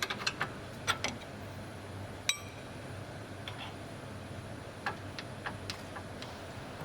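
Scattered metallic clicks and taps as nuts are fitted onto the track control arm bolts and snugged by hand tools without tension, with one ringing metallic clink about two seconds in.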